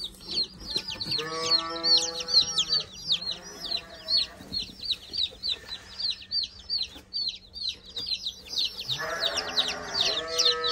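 A group of baby chicks peeping constantly: shrill, short, falling chirps, several a second, overlapping without a break.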